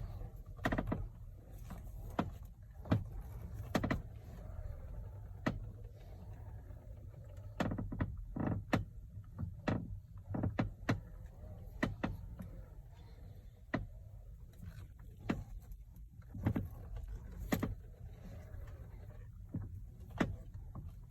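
Lexus RX 450h steering wheel making irregular sharp clicks and creaks, many at uneven intervals over a steady low rumble: an unexplained steering-wheel noise whose source is not yet found.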